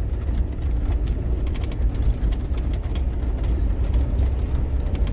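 Jeep in four-wheel drive climbing an icy lane: a steady low engine and road rumble, with many light clicks and rattles scattered through it.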